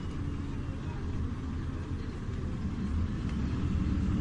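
Iveco Urbanway 12 hybrid city bus standing at a stop, running with a steady low rumble and a faint high whine that slides slightly down; the rumble grows a little louder near the end.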